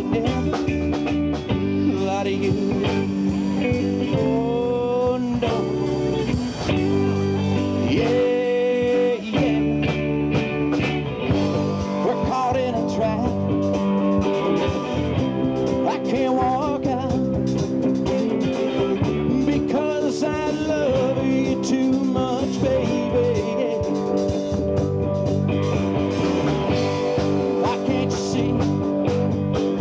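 Live rock band playing a blues-flavoured song: a man singing over electric guitars and a Pearl drum kit.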